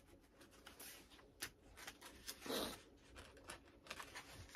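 Faint rustling and crinkling of hand-drawn paper sheets being handled and shuffled, with a louder rustle about halfway through.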